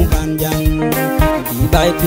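Instrumental passage of an African pop song: plucked guitar lines over bass and drums with a steady beat.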